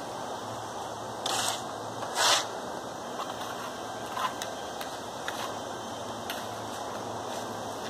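Steel trowel scraping wet stucco on a wall, two short scrapes about one and two seconds in, then a few faint clicks and taps over a steady background hiss.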